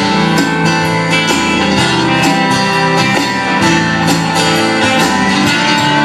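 Live country band playing an instrumental break between verses: strummed guitar chords over a steady drum beat.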